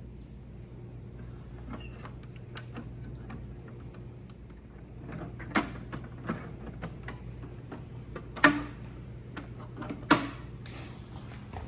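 Clicks and knocks of a Macintosh Color Classic and its parts being handled and set up, with three sharp, louder clicks in the second half, over a steady low hum.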